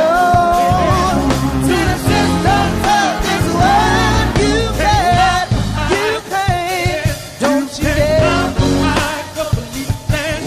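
A rock-style song with a sung lead vocal over a full band with bass and drums.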